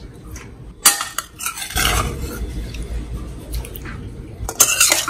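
A spoon clinks and scrapes against a cooking pan as raw prawns are put into the water and stirred. There is a sharp clink about a second in and a cluster of clinks near the end.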